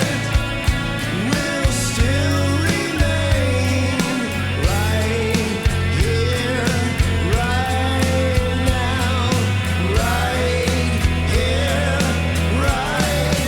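Background music: a rock-style song with a steady drum beat, bass and a gliding melodic lead.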